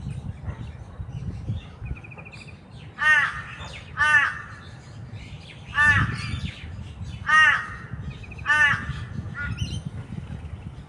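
Wild bird giving five loud, short calls spaced about a second or more apart, each rising then falling in pitch. Twice a brief, rapid trill from another bird is heard. A steady low rumble runs underneath.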